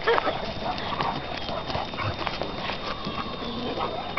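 Dogs moving about on dirt and grass: scattered soft, irregular footfalls and rustling.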